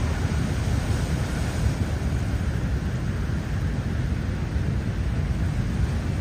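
Strong wind on the microphone over surf: a steady, loud rushing noise, heaviest in the low end, with no distinct crashes.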